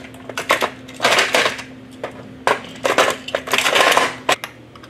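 Small die-cast metal toy engines clattering and clicking against a hard plastic carry case as they are set into its slots, in several short bursts of rattling.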